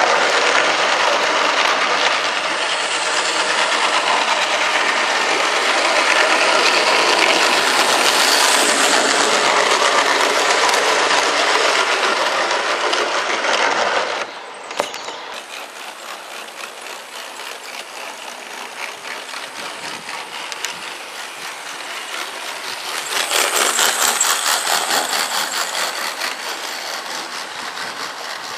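Model trains running on an outdoor garden railway: wheels rumbling and clicking along the track. The noise drops suddenly about halfway through, then builds again with a quick run of clicks as coaches pass close by near the end.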